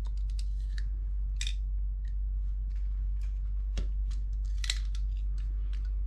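Scattered light clicks and snips from a pair of snips and a small tube of latex acrylic caulk being handled, over a steady low hum.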